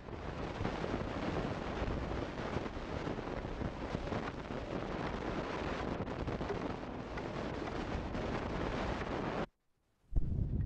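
Steady rough rumbling noise of wind buffeting the microphone on an old Super 8 sound track, with no distinct strokes standing out, cutting out to silence for about half a second near the end.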